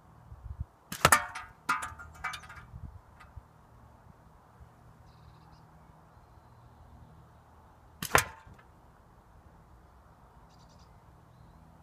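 Two air rifle shots about seven seconds apart, each a sharp crack as the pellet hits a tin can. The first is followed by two lighter metallic knocks from the struck can.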